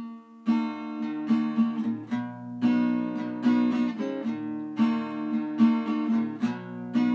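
Acoustic guitar strumming chords, each stroke ringing on into the next.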